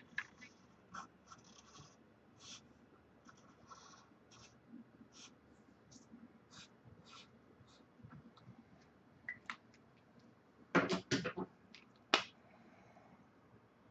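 Felt-tip marker drawing on paper: short scratchy strokes, about one or two a second. A few louder sharp clicks and knocks come near the end.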